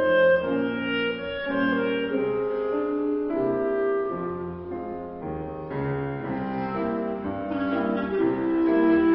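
Chamber music for clarinet and piano quintet: clarinet, two violins, viola, cello and grand piano playing together. The music softens around the middle and swells again near the end.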